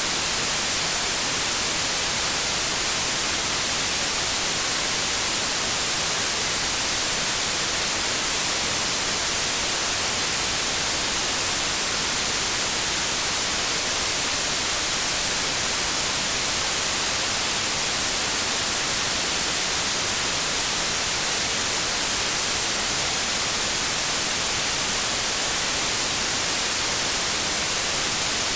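Steady white noise: an even, unchanging hiss, strongest in the high end, with no breaks or changes in level.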